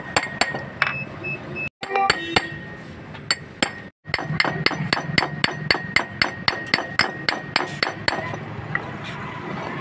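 Hammer striking metal on a car AC compressor's clutch pulley, about three sharp ringing taps a second, as the pulley and its locking ring are knocked free for replacement of a burnt clutch assembly. The tapping thins out after about eight seconds.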